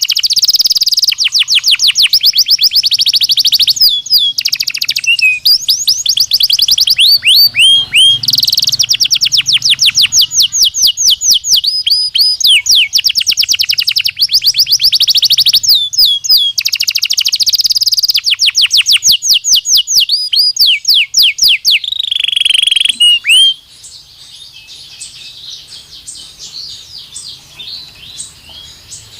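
Belgian canary singing: loud, rapid trills of fast downward-sweeping notes, many to the second, broken by short pauses. About three-quarters of the way through the song suddenly drops to much softer twittering.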